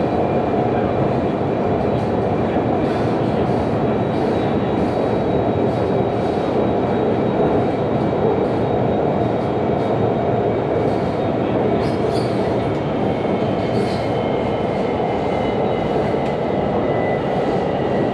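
Hanoi Cát Linh–Hà Đông metro train running between stations, heard from inside the carriage: a steady rumble of wheels on rail with faint high-pitched whines over it, which sag slightly in pitch in the second half.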